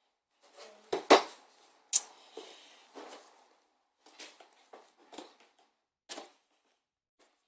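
Toy packaging being handled and opened: a series of sharp clicks and short crackles, the loudest about one and two seconds in, then fewer and fainter ones.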